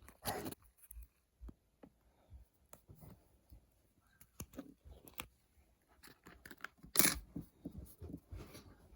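Scattered small taps, clicks and rustles of hands handling things at close range, with the loudest rustle about seven seconds in.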